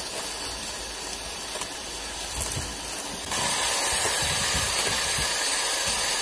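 Electric hand mixer running steadily, its twin beaters whipping egg whites in a stainless steel bowl. The whirring gets louder and brighter about three seconds in.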